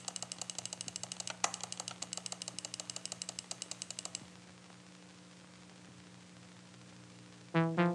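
Single-button computer mouse button clicked rapidly and repeatedly, about ten clicks a second, in a frantic 'panic click', with one louder click about a second and a half in. The clicking stops about four seconds in, leaving a faint steady hum, and music starts just before the end.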